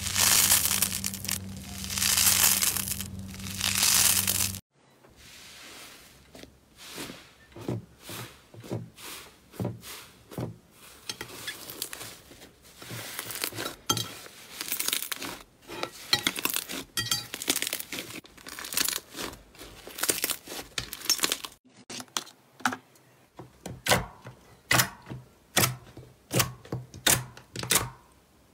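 Crunchy foam slime pulled apart between the fingers, crackling and tearing in loud bursts for the first few seconds. Then soft fluffy slime is stretched and squeezed with irregular small squelches, and near the end a glossy slime gives a run of sharp separate pops.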